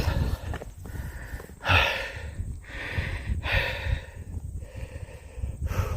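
A man breathing hard and heavily, about one loud breath a second: out of breath from climbing a steep trail with a pack.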